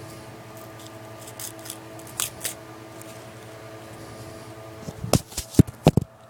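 Small clicks and snips of hands working on firecrackers, peeling and cutting off their paper casings, over a steady low hum. Near the end there is a quick run of several loud knocks and bumps.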